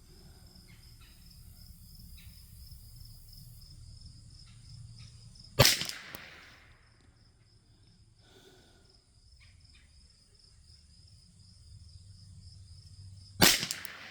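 Two shots from a Thompson Center T/CR22 .22 LR rifle, about eight seconds apart, each a sharp crack with a short echo. Crickets chirp steadily underneath.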